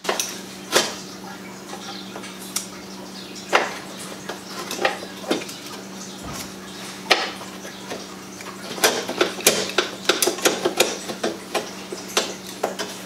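Scattered light metallic clicks and clinks of screws, clips and a hand tool being handled while the headlight-support screws of a stripped BMW E36 front end are worked loose, with a quicker run of clicks near the end. Under them is a low steady hum.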